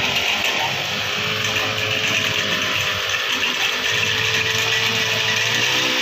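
Honda GX35 35 cc four-stroke single-cylinder engine on a brush cutter with a rotary tiller attachment, running at high speed while the tines churn the soil. Its pitch rises a little near the end.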